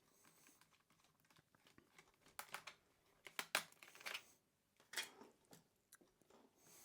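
Faint clicks, taps and scrapes of hands working on a laptop's plastic case to get at the RAM compartment, loudest in a cluster in the middle.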